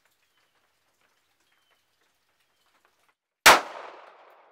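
A single pistol shot from a Beretta APX about three and a half seconds in: a sharp crack with echo dying away over about a second. It is the first test firing of the pistol after its slide was milled for a red-dot optic.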